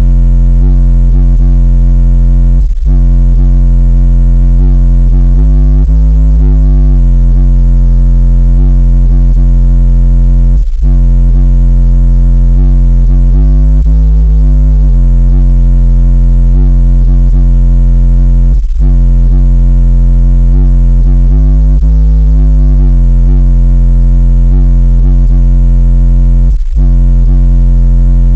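Bass-boosted hip-hop track played very loud through a 10-inch Memphis subwoofer driven by an 800-watt amp, heard inside the car. Deep sustained bass dominates, with a brief drop about every eight seconds.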